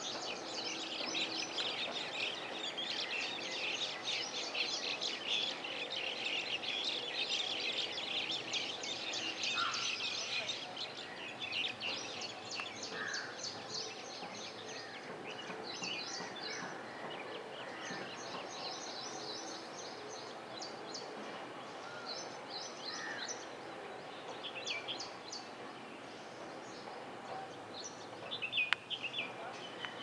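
Many birds chirping and twittering, a dense high chatter for about the first ten seconds that then thins to shorter scattered bursts, over steady background noise.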